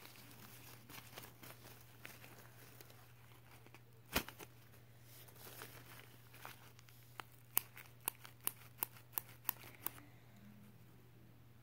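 Faint handling noise over a steady low hum, with one sharp click about four seconds in and a quick run of about eight sharp clicks, roughly three a second, near the end.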